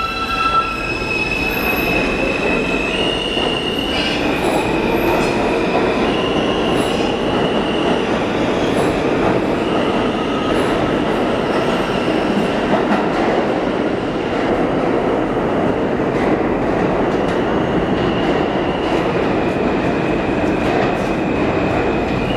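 New York City Subway E train moving along curved track, its wheels squealing in high steady tones that shift up and down in pitch every few seconds over the rumble and clatter of the cars. The squeal is wheel flanges grinding against the rail on the tight curve.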